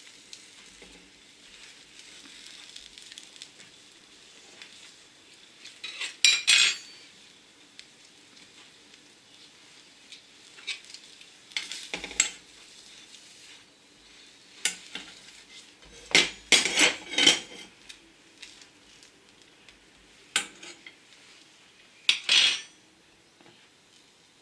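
Bread frying faintly in a pan, under scattered clinks and clatters of a spoon against a plate, a cheese tub and the frying pan while a sandwich is assembled and pressed. The clatter is sharpest in a quick run about two-thirds of the way through.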